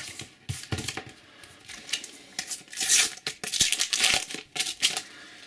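Panini sticker packet being torn open and its foil wrapper crinkled by hand, in irregular rustling bursts, loudest about three seconds in.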